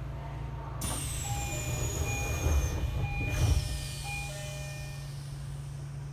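Tokyo Metro 10000 series train doors operating: the door chime sounds as a run of short repeated tones while a high whine falls in pitch, and the doors meet with a heavy thump about three and a half seconds in, over the steady hum of the stopped car.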